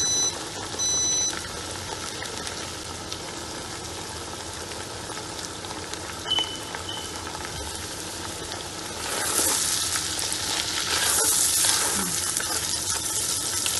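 Tomato puree sizzling in hot oil in a cooking pot with fried corned beef and onions. The sizzle grows louder about nine seconds in, as the puree is stirred into the oil with a silicone spatula. Two short high electronic beeps sound in the first second and a half.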